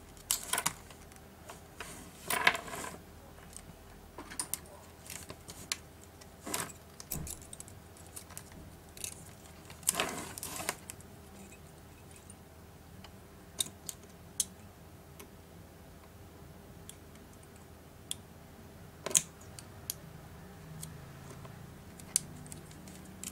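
Small pry tools clicking and scraping against the opened tablet's frame and flex cable, with two longer scraping rasps as the cable is worked loose from its double-sided adhesive, amid scattered light clicks.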